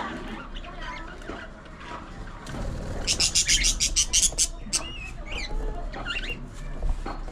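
Budgerigars chattering and warbling, with short rising and falling chirps. About three seconds in comes a fast, loud run of about a dozen sharp clicks, roughly eight a second, lasting a second and a half.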